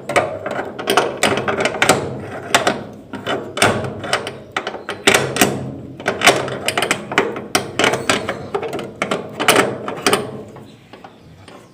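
A key working in a door lock with keys jingling: many irregular metallic clicks and rattles.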